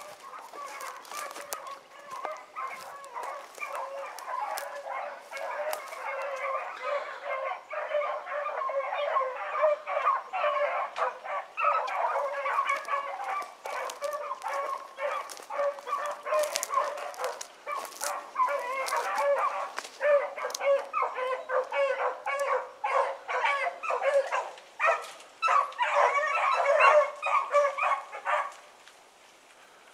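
A pack of rabbit hounds baying together, many overlapping voices in full cry, the sound of dogs running a rabbit's track. The chorus stops abruptly shortly before the end.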